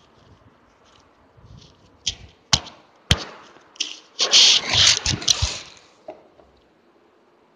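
Handling noise: a few sharp knocks and clicks, with a burst of rustling in the middle, as objects are moved about on a kitchen counter.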